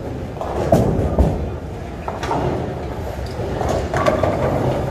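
Bowling alley in play: bowling balls rumbling down the wooden lanes, with pins crashing several times, about a second in, at two seconds and near the end.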